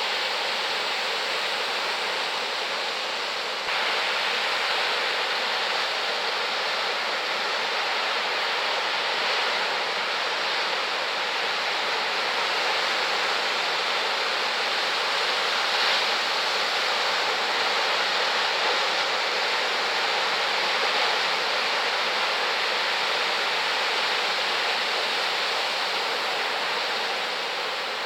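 Surf from a big typhoon swell breaking along the shore: a steady, even wash of noise that steps slightly louder about four seconds in.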